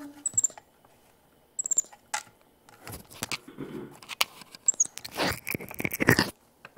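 White-faced capuchin monkey handling the camera at close range: clicks and rustling of her hands on it, with a few brief, very high squeaks. The rustling is loudest near the end, when her hand covers the lens.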